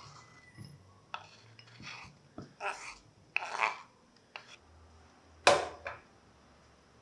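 Chopped chocolate scraped off a wooden cutting board with a knife blade into a glass bowl: short scraping strokes about once a second, with pieces clinking into the glass. A louder knock comes near the end.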